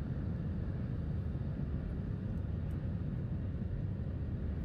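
Steady low rumble of a jet airliner in flight, heard inside the passenger cabin: engine and airflow noise.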